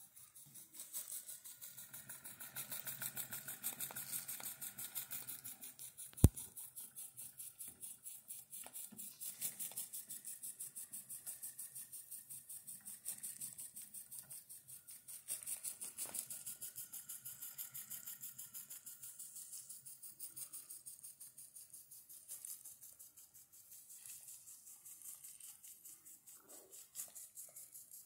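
Small model live-steam engine running steadily with a fast, even beat and a hiss, driving belt-driven toys. One sharp click about six seconds in.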